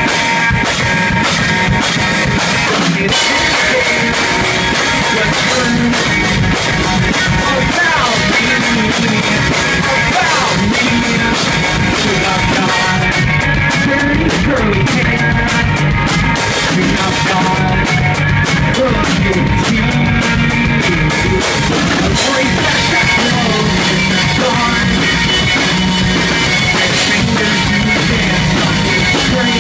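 Loud live rock band: distorted electric guitars over a steady drum kit beat with cymbals, and vocals sung into the microphone.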